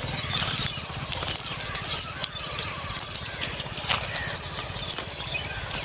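Footsteps crunching and rustling through dry, cut wheat stubble, with irregular sharp crackles as the stalks are trodden, over a steady low rumble.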